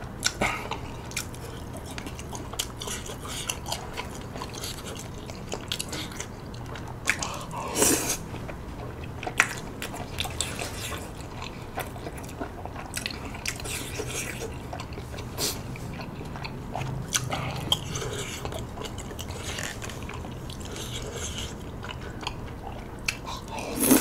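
Close-miked chewing of chewy tteokbokki rice cakes in sauce, with wet mouth sounds and many short sharp clicks. A louder bite comes about eight seconds in and again at the very end as more rice cake goes into the mouth.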